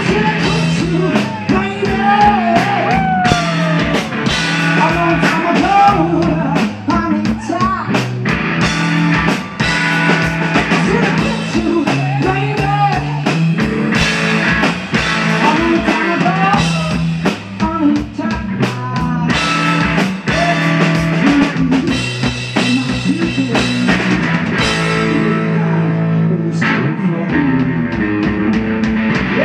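Live rock music from a guitar-and-drums duo: electric guitar and a drum kit pounding out a dense beat, with a male singer's voice on top.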